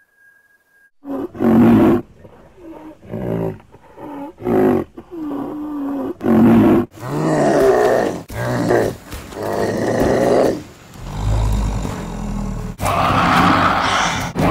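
Dubbed animal calls: a string of short, deep calls, then longer, louder calls, a deep low rumble about two-thirds of the way in, and a noisier call near the end.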